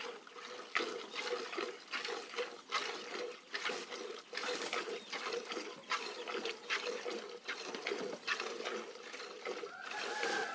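A cow being milked by hand: streams of milk squirting into a pot in a quick, uneven rhythm, over a faint steady hum. A pitched animal call begins at the very end.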